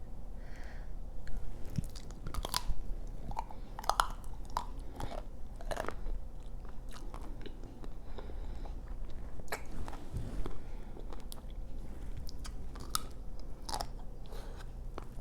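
Biting into and chewing a chocolate-coated Magnum ice cream bar: irregular sharp crackles and crunches as the hard chocolate shell breaks, loudest in a cluster over the first few seconds.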